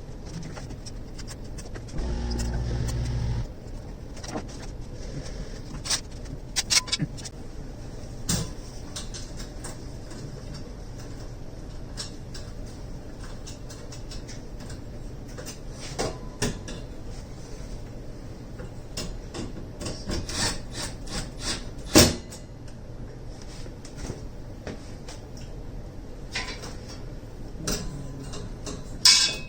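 Scattered clicks, taps and rubbing from handling network cables and rack hardware, over a steady low hum. A brief low buzz about two seconds in, and a sharp knock later on.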